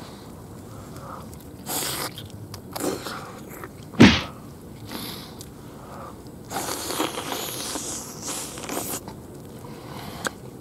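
Someone eating roast chicken by hand in plastic gloves: scattered bites, chewing and handling noises, with one sharp knock about four seconds in.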